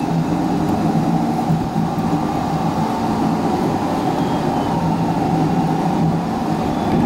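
Steady engine and road noise from inside a moving car, an even hum with no change in pitch, sped up to double speed.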